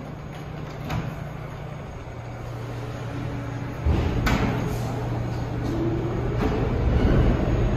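New York City subway train on the station tracks: a steady low hum builds into a louder rumble about four seconds in, with a few sharp clicks and knocks and a motor whine rising in pitch near the end.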